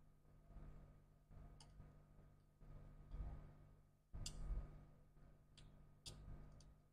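Quiet handling sounds of laptop parts and cables being worked on: about five small sharp clicks, the loudest about four seconds in, over low dull knocks.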